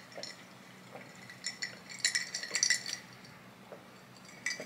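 Small hard objects rattling and clinking in short bursts as they are handled, the busiest burst about two seconds in, then a brief lull before more rattling near the end.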